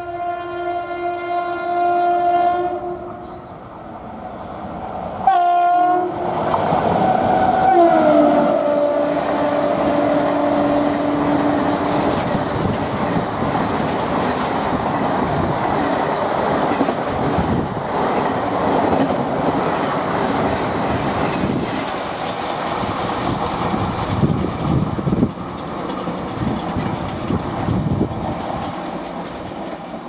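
WAP7 electric locomotive's horn sounding three times, a long blast, a short one, then a long one that drops in pitch as the locomotive passes at speed. After it, the Duronto's coaches rush past with a steady clatter of wheels over rail joints, easing off near the end.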